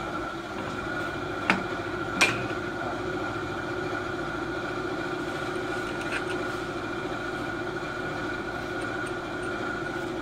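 Steady machine hum holding a low and a higher tone, with two sharp metal clicks about a second and a half and two seconds in as the steel lifting rod and frame of a traction bed are fitted by hand.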